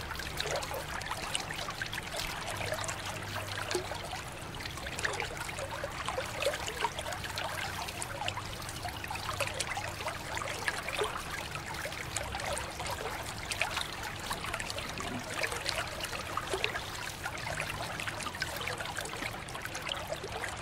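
A stream of water pouring steadily into a shallow tub of standing water, splashing, as a small plastic toy train is rinsed under the flow by hand.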